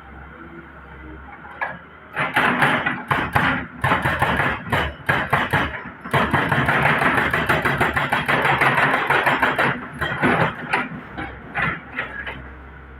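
Excavator at work: loud, rough clattering and scraping with many sharp knocks over its running engine, from about two seconds in until shortly before the end.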